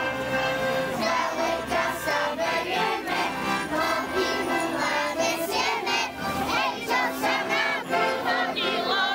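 Music with several voices singing, over the murmur of a crowd.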